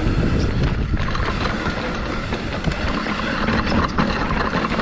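Trek Slash full-suspension mountain bike descending a rough dirt trail. The tyres crunch over dirt and rocks, and the bike gives off a constant clatter of small knocks and rattles.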